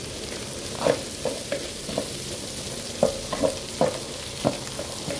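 Chopped green beans, carrots, bell pepper, onion and egg sizzling in a hot non-stick pan. A wooden spatula stirs them, scraping and knocking against the pan, first about a second in and more often in the second half.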